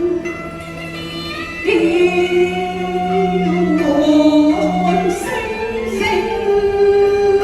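Cantonese opera singing: a voice holding long notes and sliding between pitches, over instrumental accompaniment.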